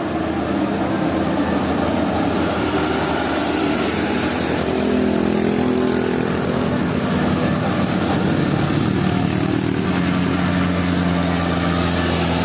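Road traffic dominated by a bus engine running, with a steady rumble whose engine tones shift a couple of times.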